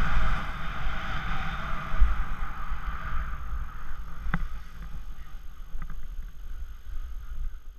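Skis sliding over snow, a steady hiss, with wind rumbling on the camera microphone. The hiss eases after about three and a half seconds, and a single sharp click comes about four seconds in.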